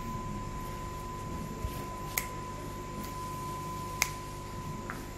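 Quiet room tone with a faint steady high-pitched tone and a few scattered sharp clicks, the clearest about two seconds in and again about four seconds in.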